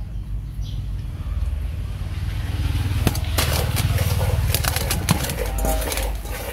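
A metal spoon scooping and scraping cooked rice around an aluminium pot, with sharp clinks of metal on metal between about three and five seconds in, over a steady low rumble.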